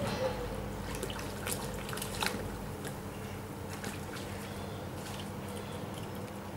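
Shallow river water trickling and dripping, with a few sharp clicks about two seconds in.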